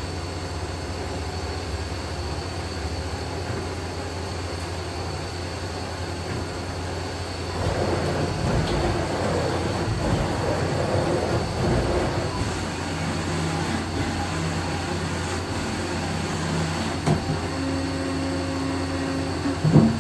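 A Makino a61 horizontal machining center runs a program moving its axes through their full travels at 50% speed. It gives a steady machine hum, with a louder, rougher stretch of traversing noise from about eight to twelve seconds in. Later come steady humming tones and a short loud clunk near the end.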